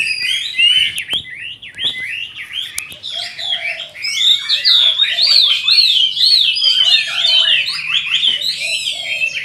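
Chinese hwamei singing a loud, fast, unbroken run of rising and falling whistled notes, sparser for a few seconds and fuller from about four seconds in. A few sharp clicks sound in the first three seconds.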